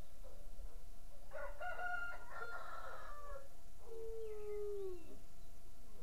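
A rooster crows once, starting about a second in, with a long drawn-out last note that falls in pitch as it ends.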